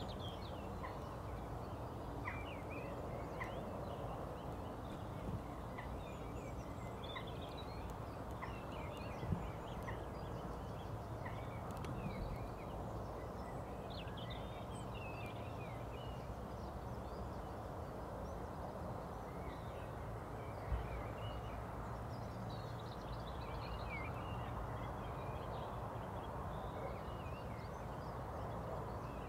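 Small birds chirping and twittering on and off over a steady low background hiss and hum, with a couple of faint knocks.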